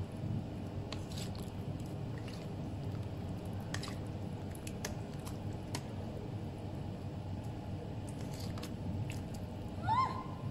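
A metal ladle stirring thick fish maw soup in a large stainless steel pot: wet squelching and sloshing, with scattered light clinks of the ladle against the pot. Near the end there is a short rising vocal sound.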